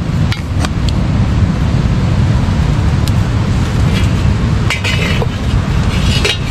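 A steady low rumble with a few sharp clicks scattered through it: a metal ladle stirring and clinking in a stew pot on a wood fire.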